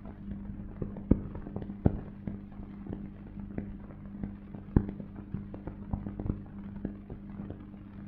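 Worn optical film soundtrack noise: a steady low hum with irregular crackles and pops, a few of them sharp and loud, about a second in, near two seconds and near five seconds.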